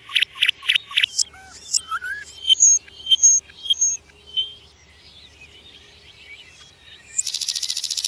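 Common nightingale singing: a quick run of repeated notes, then a few rising whistles and short high piping notes, a pause of a couple of seconds, and a loud, fast, buzzy trill starting about a second before the end.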